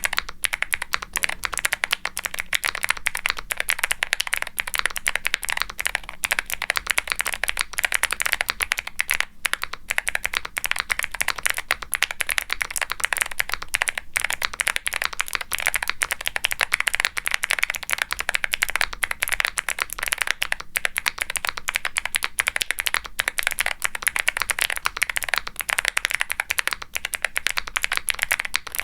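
Continuous fast typing on a Womier SK75 mechanical keyboard with Gateron Melodic clicky switches and GMK double-shot ABS keycaps: each keypress gives a crisp click followed by a deeper pop as the key bottoms out, the keystrokes running together into a dense clatter with only brief pauses.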